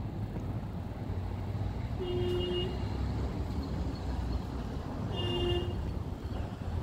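Steady low outdoor rumble with two short beeps of a vehicle horn, the first about two seconds in and the second about three seconds later.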